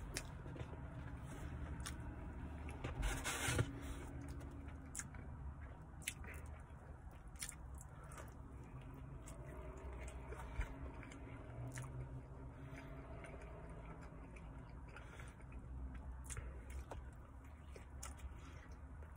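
A person chewing and biting into pepperoni pizza close to the microphone, with wet mouth clicks and smacks throughout. A brief, louder burst of noise comes about three seconds in.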